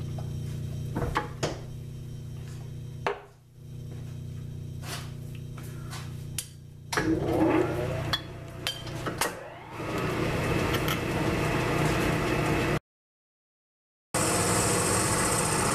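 South Bend metal lathe: the motor hums while the belt is shifted with a few clicks and knocks, then about seven seconds in the spindle spins up with a rising whine and the lathe runs steadily, taking a finish cut. The sound drops out completely for about a second near the end.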